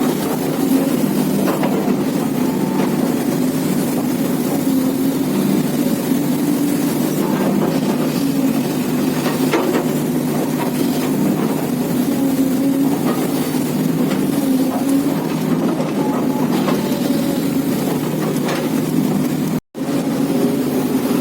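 Heavy diesel engine running steadily, its drone rising and falling slightly, with faint knocks now and then. The sound cuts out for a moment near the end.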